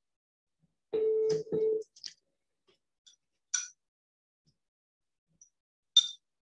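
A telephone line's ringing tone heard during a call: one double ring of two short steady buzzes close together. After it come a few short sharp clicks, the loudest near the end.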